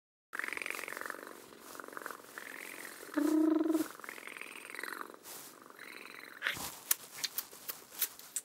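Cartoon cat purring in slow rhythmic waves as it rolls about on catnip, with a short pitched trill about three seconds in. Near the end comes a run of short, sharp clicks and scuffs.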